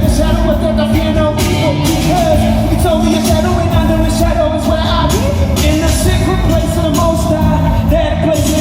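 Live gospel band playing with a singer's voice over it, drum hits cutting through the music.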